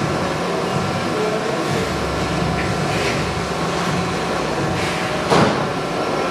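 Steady mechanical hum and rumble of machinery, deepening about two seconds in, with a single sharp knock about five seconds in.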